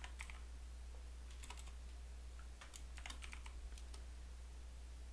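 Computer keyboard typing in a few short runs of keystrokes, the longest run in the second half, over a steady low hum.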